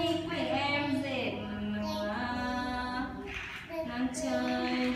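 A woman's voice singing a slow, unaccompanied melody in long held notes that step up and down in pitch.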